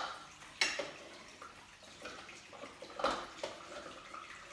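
A few separate knocks and clinks of a bowl and spoon against a food processor's bowl as boiled potatoes are tipped in, with no motor running.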